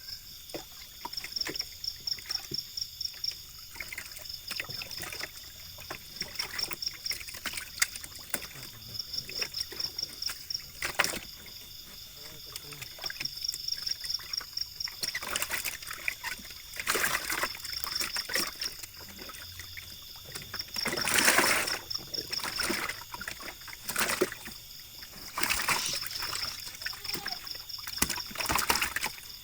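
Water splashing in irregular bursts as Masamo catfish broodstock are handled and put into a pond, the biggest splash about two-thirds of the way through.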